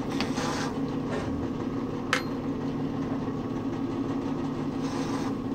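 Steady motor hum with short metal-on-metal scrapes and one sharp metallic click about two seconds in, as a drill bit is pulled from and snapped into a Wahlstrom quick-change drill press chuck.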